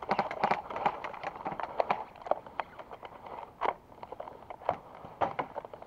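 Scattered light clicks and knocks at irregular intervals, the handling and movement noise of a player and his gear.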